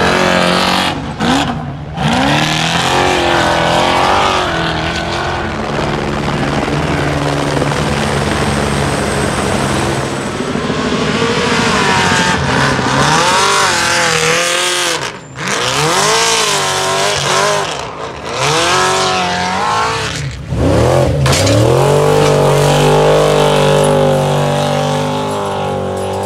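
Off-road race truck engines revving hard, the pitch climbing and dropping repeatedly as trucks power through a sandy turn one after another, with several abrupt breaks in the sound.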